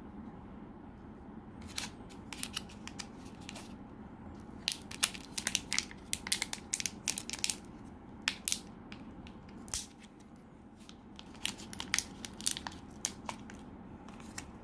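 Irregular flurries of sharp plastic clicks and crinkling from a vape pod cartridge, its coil and their small packaging handled by hand while the coil is swapped, with a short lull about two-thirds of the way through.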